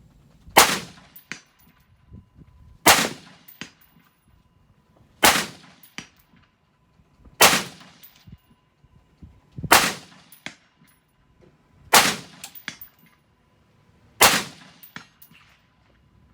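AR-15 rifle fired seven times in slow, steady semi-automatic fire, about one shot every two seconds. Each shot is followed about half a second later by a fainter, shorter second sound.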